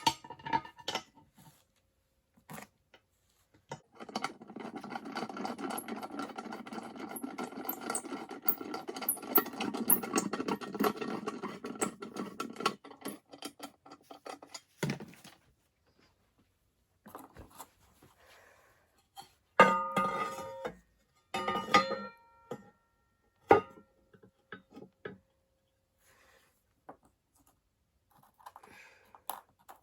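Workshop handling of a mechanical crossing bell's metal parts: a long stretch of rough scraping noise, then several sharp metal knocks that ring briefly.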